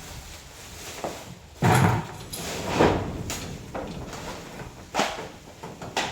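A series of separate knocks and clunks, the loudest and heaviest about one and a half seconds in, with a few lighter ones after it.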